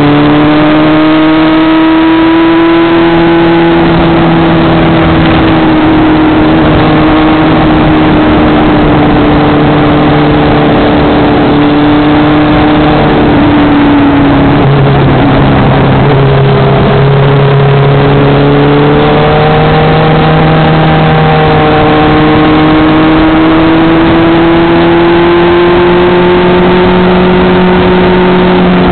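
Vehicle engine under load at speed on track, heard onboard over steady wind and road rush. The note eases slowly, breaks and changes about halfway through, then climbs slowly again as the vehicle pulls.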